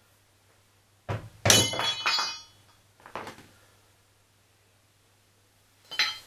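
Metal knocks and a ringing metallic clatter from a hammer and tools: one knock about a second in, a longer clatter with ringing tones just after, then single knocks at about three and six seconds.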